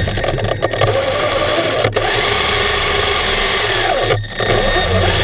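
Scuba diver's regulator exhaust, bubbles burbling and churning underwater, heard loud and close, with a brief break about four seconds in.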